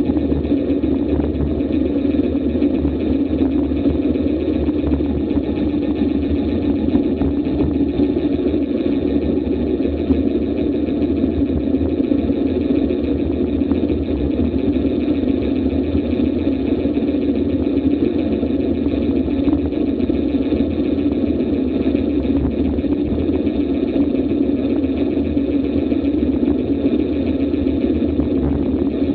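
Steady rushing wind and road noise on an action camera's microphone during a fast road-bike descent at around 30 to 35 mph.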